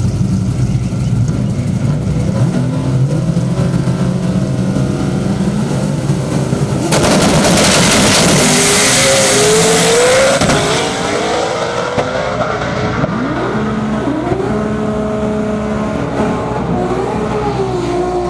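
Two manual-transmission drag cars running at the start line, then launching hard about seven seconds in with a loud burst of engine and tyre noise. The engines rise in pitch several times, dropping back at each gear shift, as the cars pull away down the track.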